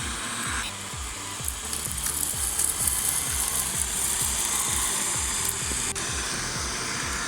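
Background music with a steady beat, laid over the whir and hiss of a Cecotec Conga 3890 Titanium robot vacuum running on a hard floor.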